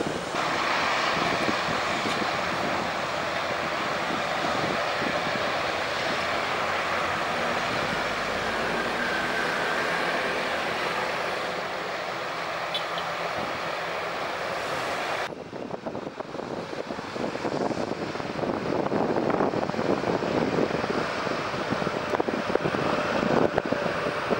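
GE GEnx-1B turbofans of a Boeing 787-9 running at high power as the airliner rolls down the runway, a broad steady rush of jet noise. About fifteen seconds in the sound changes suddenly, losing its treble, then builds louder again.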